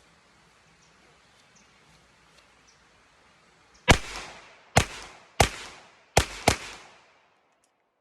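Canik Rival 9mm pistol firing five shots in quick succession starting about four seconds in, roughly two-thirds of a second apart with the last two closer together, each shot trailing off in a short echo: one five-round magazine emptied.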